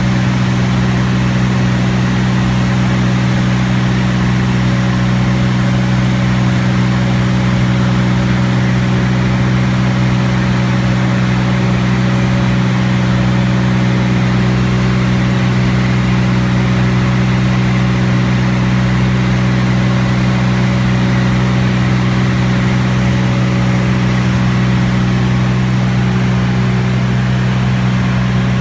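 T-34 Mentor's piston engine and propeller droning at a steady, unchanging pitch and level, heard as loud constant aircraft engine noise.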